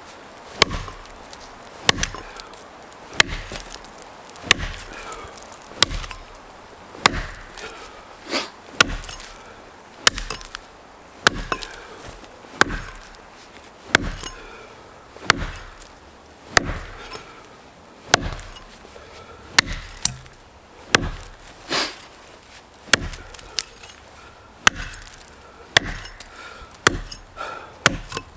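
Rinaldi America No. 4 felling axe chopping into a standing tree trunk to cut the face notch, one sharp strike about every 1.3 seconds, over twenty strokes in all.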